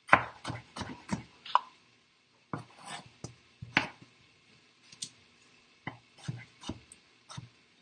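Kitchen knife chopping potatoes on a wooden cutting board: irregular sharp knocks of the blade through the potato onto the board, coming in quick clusters with short pauses between them.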